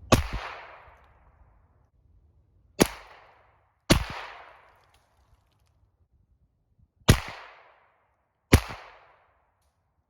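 Five single aimed shots from a Henry U.S. Survival AR-7 semi-automatic .22 Long Rifle, spaced unevenly a second or more apart, each sharp crack trailing off in a short echo.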